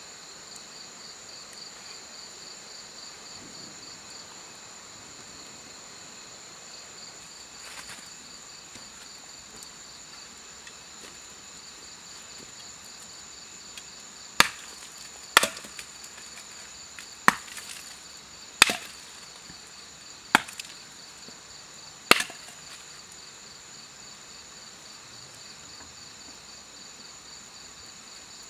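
Six sharp chops of a blade into wood, irregularly spaced a second or two apart, over a steady, pulsing chirr of crickets.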